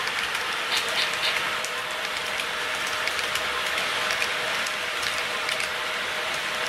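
HO-scale model freight train rolling past, its small metal wheels on the track making a steady rush with fast, irregular clicking. A faint steady hum runs underneath.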